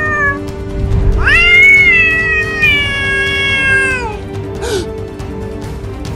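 A cat gives one long meow, starting about a second in and held for some three seconds before it falls away, over background music.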